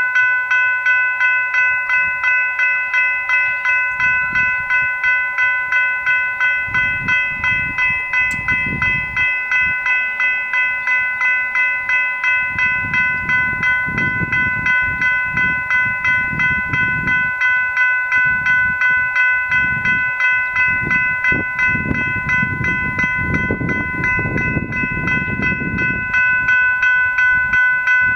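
General Signals Type 3 electronic level-crossing bells ringing in a fast, even ding-ding at about three to four strikes a second, a bright metallic tone: the crossing has activated, warning that a train is approaching while the boom gates come down.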